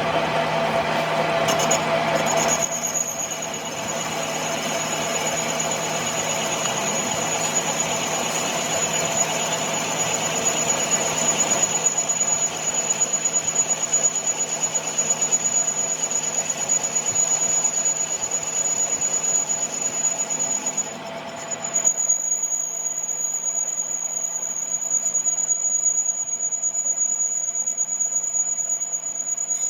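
A workshop machine running steadily with a high-pitched whine over a dense, noisy hiss. The hiss drops away about twenty-two seconds in, while the whine carries on.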